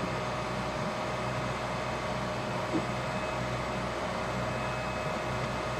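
Steady engine hum: a low drone with a couple of steady whining tones over it, unchanging throughout.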